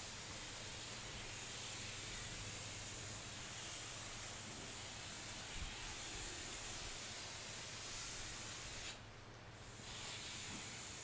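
Steady hiss of water spraying from a hose while a horse is washed, dropping away for about a second near the end and then resuming.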